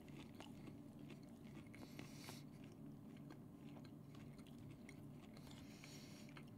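Faint chewing of a McDonald's fish bite: soft mouth clicks and light crunches scattered through, over a low steady room hum.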